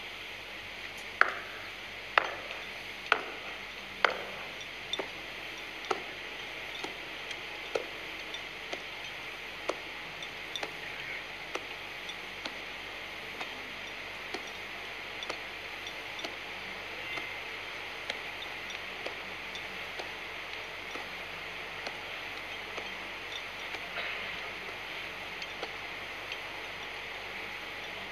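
Boots stamping on the ground in a ceremonial high-step march: four loud stamps about a second apart, then softer footfalls every half second to a second, over a steady background hiss.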